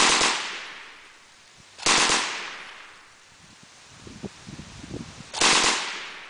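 Browning Automatic Rifle firing .30-06 M2 ball ammunition in three short bursts, about two and three and a half seconds apart, each report trailing off in echo.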